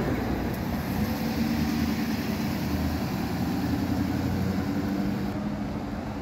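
Pickup truck engine running as the truck pulls away and drives off, a steady drone that eases slightly near the end.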